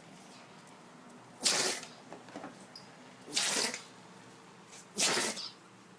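Maltese dog sneezing three times in a row, a short sharp sneeze about every one and a half to two seconds, each followed by a smaller sniff, in a bout of nonstop sneezing.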